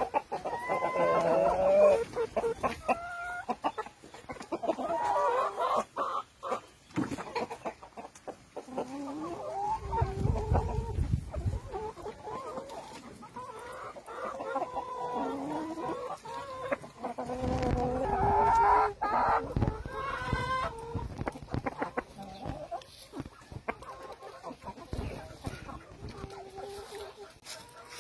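A flock of Rhode Island Red chickens clucking and calling on and off, with a series of overlapping pitched calls.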